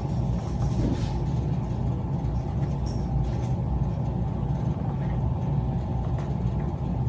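A steady low hum throughout, with a few faint light taps.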